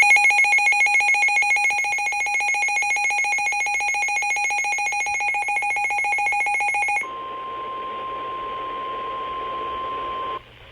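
NOAA Weather Radio warning alert. A shrill electronic alarm pulses rapidly for about seven seconds. It gives way to the steady 1050 Hz warning alert tone over radio static, which cuts off suddenly near the end, signalling a warning about to be read.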